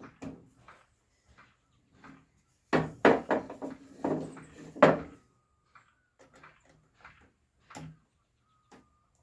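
Workshop handling noises: a run of sharp knocks and clatter, loudest between about three and five seconds in, with scattered lighter taps around it, as wooden parts and tools are set down and fitted together on the bench during a glue-up.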